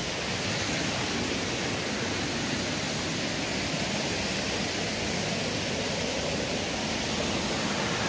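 Steady rushing of a small waterfall as water cascades over rocks.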